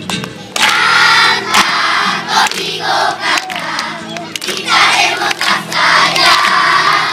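A large group of children singing a song together in chorus, in phrases of a second or two with short breaks between them.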